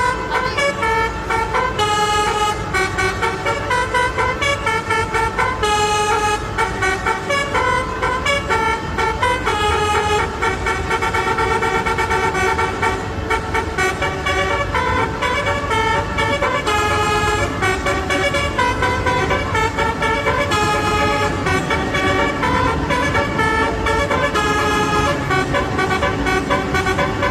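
Horn of a Renfe Avant train sounding loudly and without a break, shifting between notes every second or so, over a low rumble.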